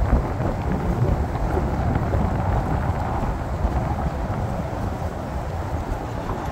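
Wind blowing across an outdoor microphone, a steady rush with gusty buffeting.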